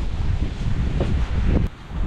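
Wind buffeting the camera microphone, a dense low rumble that cuts off suddenly near the end.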